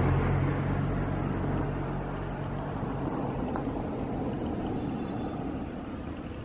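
Car engine hum and road noise from inside a moving car, slowly growing quieter; the low engine drone fades out within the first couple of seconds.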